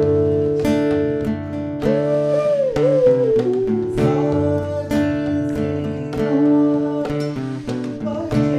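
Instrumental background music: a melody of plucked string notes with sharp attacks over a low sustained bass, and a held melodic note that bends in pitch about two seconds in.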